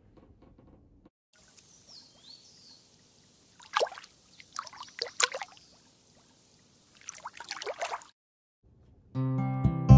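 Liquid being poured and splashing in a few short spurts, about four seconds in, again a second later and once more near the end, over a faint hiss. Music starts just before the end.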